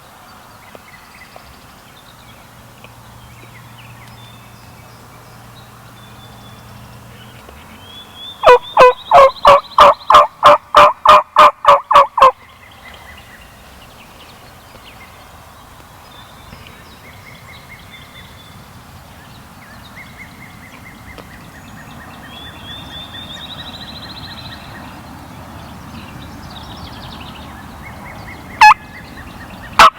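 Turkey yelping: a loud run of about sixteen evenly spaced calls, about four a second, lasting some four seconds, starting about eight seconds in. Fainter calls follow later, then one sharp loud call near the end.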